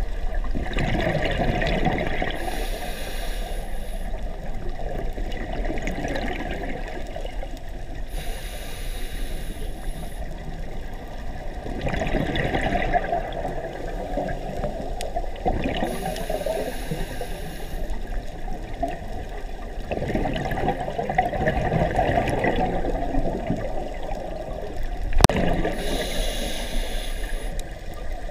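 Scuba diver breathing through a regulator underwater. A rush of exhaled bubbles comes every several seconds, alternating with a hissing inhale. There is a single sharp click a little before the end.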